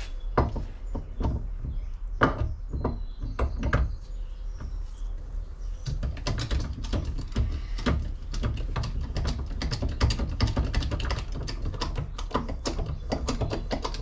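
Hand-pumped hydraulic crimping tool crimping a large lug onto 6-gauge cable held in a vise, its handle being worked. A few scattered clicks, then from about six seconds in a fast, dense run of clicking and knocking.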